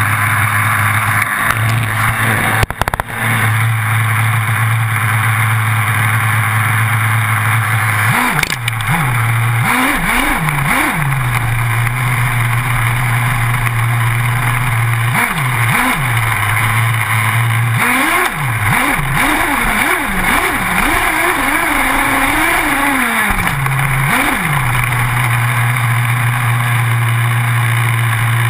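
Small nitro engine of an HPI Trophy 4.6 1/8-scale buggy, heard onboard, running at a steady idle. It is revved in short blips: a few quick ones about a third of the way in, one on its own a little later, and a longer run of repeated revs past the middle. A steady hiss of wind and tyre noise runs underneath.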